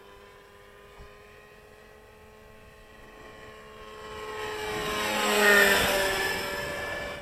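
Radio-controlled model helicopter's engine and rotors running steadily in flight, growing louder as it passes close to the listener about five and a half seconds in, its pitch sliding as it goes by, then fading.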